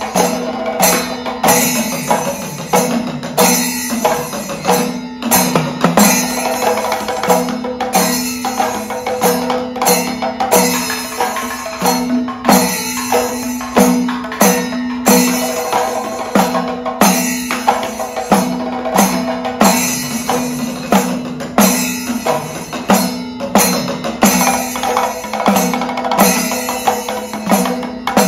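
Panchavadyam temple ensemble of Kerala: timila hourglass drums struck by hand together with maddalam barrel drums, playing a steady rhythmic pattern in thriputa tala with a strong stroke about once a second.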